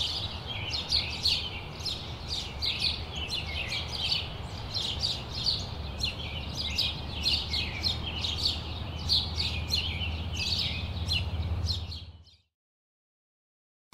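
Pine siskins twittering: a steady run of short, high chirps, several a second, over a low steady hum. It all fades out near the end.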